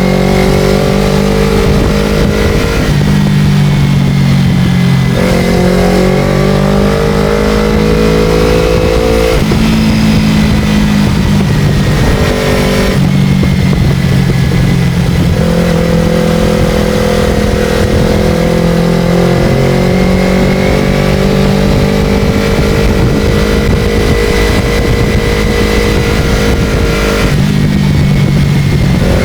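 Motorcycle engine running under way through a ride, loud and continuous, its pitch rising and falling and shifting several times as speed and revs change.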